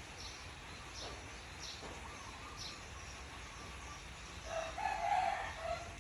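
A rooster crowing once, starting about four and a half seconds in and lasting just over a second, over short high chirps that repeat about once a second.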